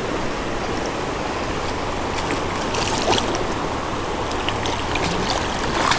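Creek water rushing steadily around the angler's legs, with a hooked brook trout splashing and thrashing at the surface a few times.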